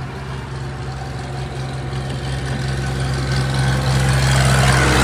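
A heavy vehicle's engine hum growing steadily louder as it approaches and passes on the road, loudest near the end, with a rush of tyre and wind noise at the peak.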